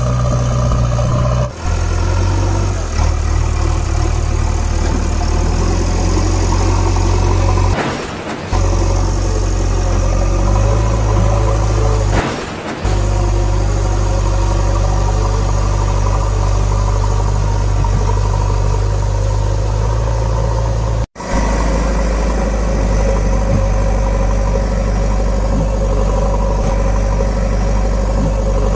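Deep, steady drone of a heavy diesel engine running, which does not come from the silent toy machines. It breaks off briefly a few times, with one sharp dropout about two-thirds of the way through.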